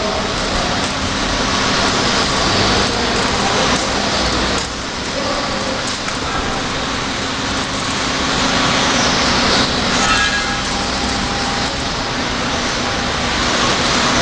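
Hydraulic tyre baler running: a steady mechanical hum under a loud, even wash of machine noise.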